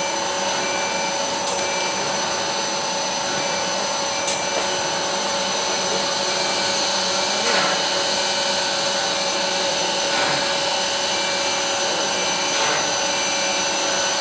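Double-spindle CNC router running: a steady spindle whine over a constant rushing hiss, with a few faint clicks a few seconds apart.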